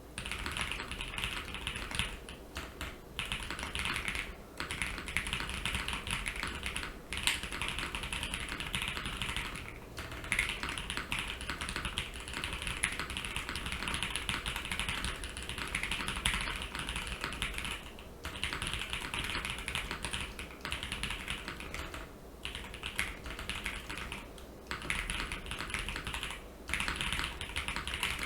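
Fast typing on a mechanical keyboard with stock, unlubed JWK Bluey linear switches on a polycarbonate plate with plate and case foam: a dense run of key clacks and short-travel bottom-outs, broken by brief pauses every few seconds.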